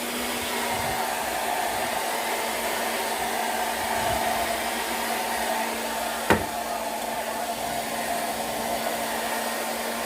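JML Salon Pro hand-held hair dryer running steadily on hair being blow-dried: an even rush of air with a steady motor hum. A single sharp click sounds about six seconds in.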